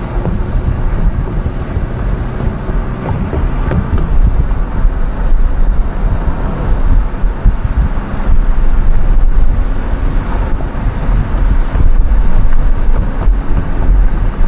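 Wind buffeting the microphone over the steady rumble of a car driving, with a faint low engine hum.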